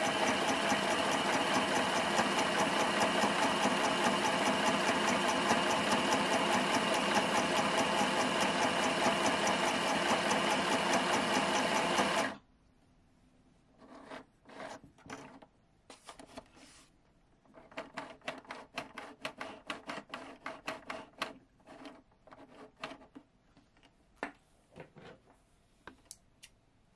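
Kylinton mini sewing machine running at a steady speed as it stitches fabric, stopping abruptly about twelve seconds in. After that come scattered light clicks and rustles of the fabric and thread being handled at the machine.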